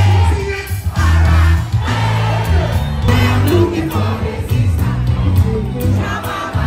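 Live Afrobeats concert heard from within the crowd: a loud amplified band with a heavy pulsing bass line and a singer on the microphone, over crowd noise.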